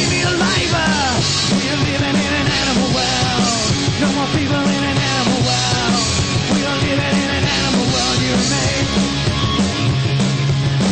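Live punk rock band playing loudly: distorted guitars, bass and drums, with shouted vocals over them.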